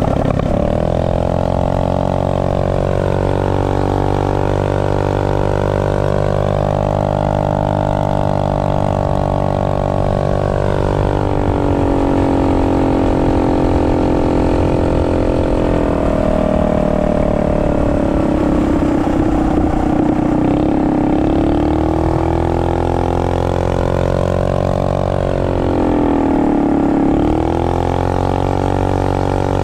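Harbor Freight Predator Ghost 212cc single-cylinder engine running under throttle, its pitch falling and rising several times as the revs change. It is on its stock setup, with the rev limiter still in place.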